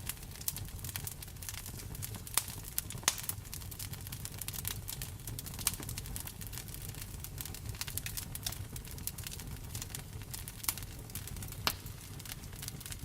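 Wood fire crackling in a fireplace, with irregular sharp pops, a few louder than the rest, over a steady low rumble and the even hiss of rain.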